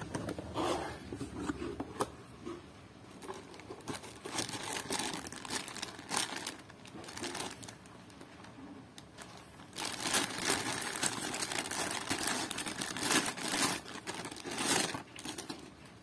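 Thin clear plastic bag crinkling and rustling as an airsoft pistol is handled and unwrapped from it, with some handling of the cardboard box. The rustling is irregular and is loudest for a few seconds past the middle.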